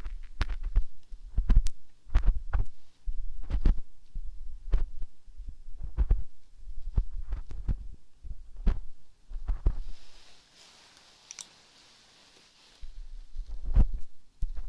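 Close-up rubbing and tapping right on a microphone's ear, as in ear-cleaning ASMR: irregular low rumbles, each with a sharp click, about once or twice a second. The rubbing pauses for a few seconds about ten seconds in, then starts again.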